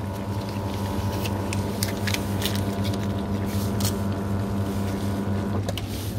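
WMF 5000 S automatic coffee machine running as it dispenses coffee into a paper cup: a steady hum with small clicks, which stops just before the end as the brew finishes.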